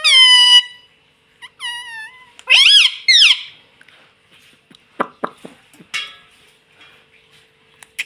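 Parakeet giving a series of shrill, high-pitched squawking calls, the first falling in pitch and two loud arching calls about three seconds in. A few short clicks follow around five to six seconds in.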